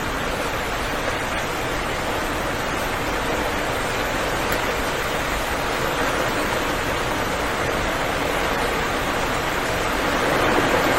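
Steady rain falling, an even hiss of water with no thunder, swelling a little near the end.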